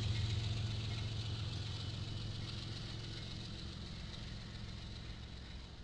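Diesel freight locomotives running with a steady low engine drone that fades gradually.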